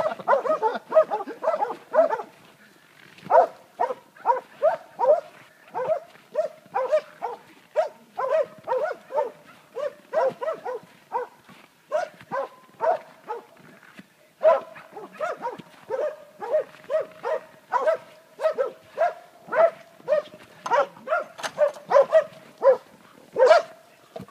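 Hunting dogs barking in a steady run at wild boar, about two to three sharp barks a second, with a short break a little past the middle.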